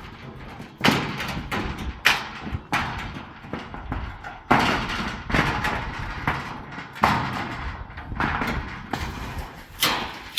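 A series of heavy thuds and knocks, about nine in all at an uneven pace of roughly one a second, each dying away quickly.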